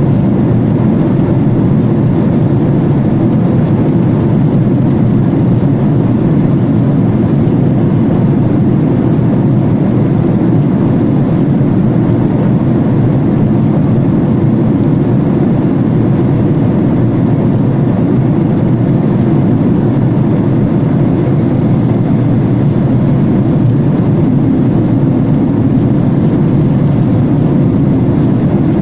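Steady, loud cabin drone inside a Boeing 737-800 in flight, heard from a window seat over the wing: the hum of its CFM56-7B turbofan engines blended with the rush of air along the fuselage.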